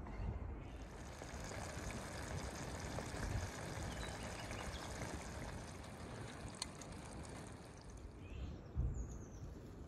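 Chicken and mushroom cream sauce simmering in a frying pan over a wood fire: a steady hiss with a soft low thump near the end.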